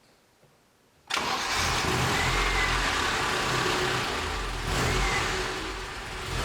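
Mercedes-Benz W124's engine starting about a second in, then running steadily with a pulsing low rumble.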